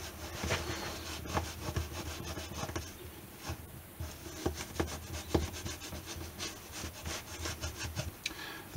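A heated flat knife blade scraping and prying under a glued acoustic guitar bridge, working the glue joint loose. Soft scrapes and small wooden ticks come at uneven intervals.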